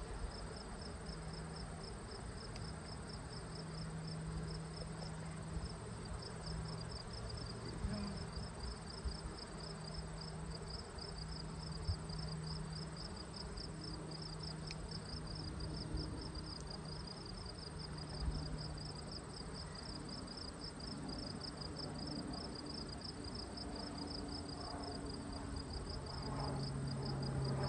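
Honey bees buzzing around an open hive, a low hum that swells and fades as bees fly past, with an insect's fast, evenly pulsing high trill going on steadily behind it.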